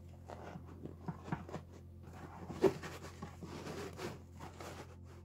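Leatherette seat cover with foam padding rustling and rubbing as it is stretched by hand over a cable reel, with scattered small clicks and one sharper knock about two and a half seconds in.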